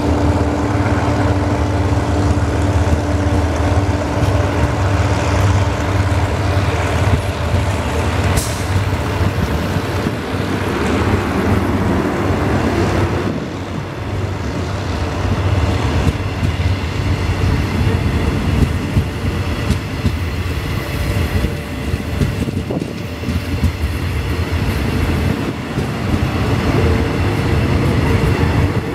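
Eastern & Oriental Express passenger coaches rolling past on the rails with a steady low rumble of wheels and running gear. A single sharp click comes about eight seconds in.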